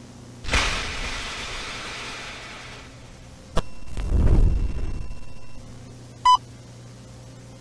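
A sudden burst of static hiss that fades over about two seconds, then a sharp click and a low rushing rumble, and a short electronic beep near the end, all over a steady low hum.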